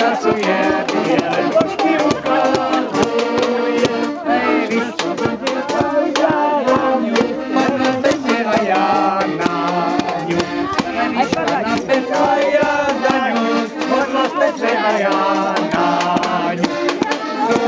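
Diatonic button accordion playing a folk tune with a steady rhythm.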